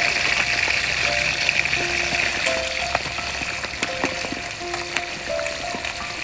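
Whole river prawns deep-frying in a large wok of hot oil, a steady sizzle, as a perforated skimmer stirs them.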